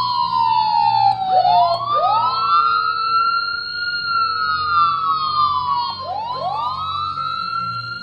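Wailing emergency siren: its pitch slides slowly down, then sweeps quickly back up about a second in and again about six seconds in, with two overlapping copies of each upward sweep.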